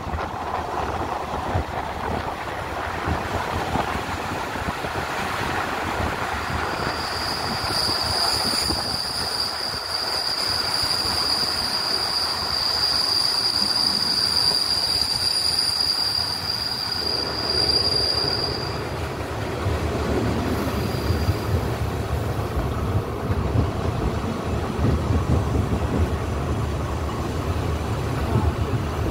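Train running on the rails, heard on board as a continuous rumble. From about seven seconds in, a loud, high, steady wheel squeal sets in and stops abruptly about twelve seconds later, after which a heavier low rumble takes over.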